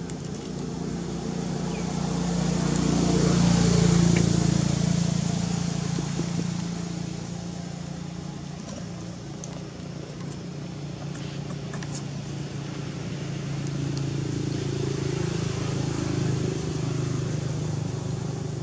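A motor vehicle's engine hum, growing louder to a peak about four seconds in and fading, then swelling again later as traffic passes.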